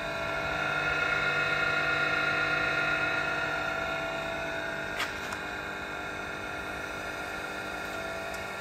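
Bemato BMT-1545-AH surface grinder running, its motors giving a steady whine of several tones over a low hum as the table traverses. A sharp click sounds about five seconds in.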